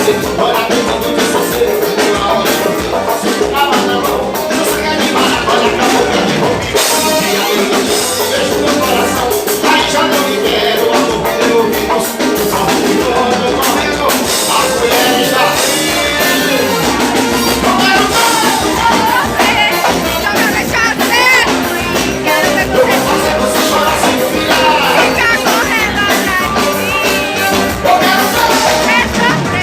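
Live band music at a stage show, loud and continuous with a steady drum beat.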